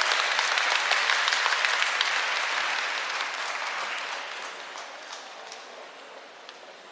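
Sumo arena crowd applauding at the end of a bout, loud at first and dying away over the next few seconds.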